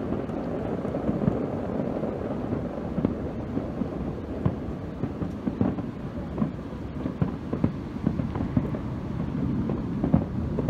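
Aerial fireworks bursting: a continuous rumble of overlapping booms with many irregular sharp reports on top, the sharpest near the end.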